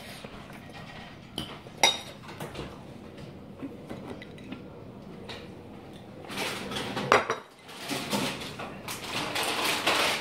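Metal fork clinking and scraping against a plastic bowl while eating noodles, with scattered small clicks. Two sharper, louder knocks stand out, about two seconds in and about seven seconds in.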